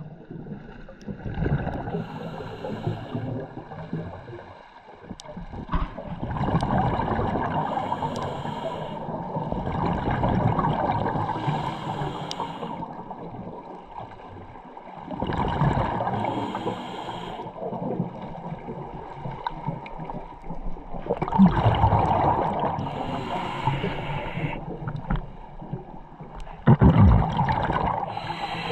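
A scuba diver breathing through a regulator, heard underwater: bursts of exhaled bubbles gurgling and rushing every few seconds, with quieter gaps between breaths.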